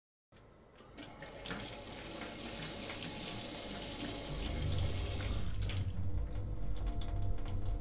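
Water running from a surgical scrub-sink tap while hands are washed under the flow. The steady hiss of the water is strongest for a few seconds and then breaks into lighter splashes and drips, with a low rumble coming in about halfway.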